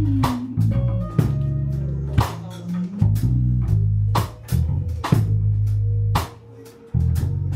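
Band music: held bass guitar notes and guitar, with a drum kit hitting about once a second. The bass drops out for about a second near the end.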